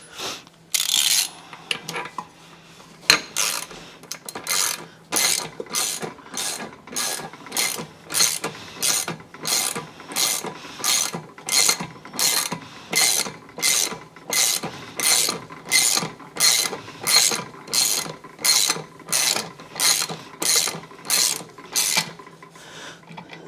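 Ratchet wrench tightening a propeller nut onto an outboard's prop shaft: a long even run of ratcheting strokes, about one and a half a second, after a couple of separate knocks in the first few seconds.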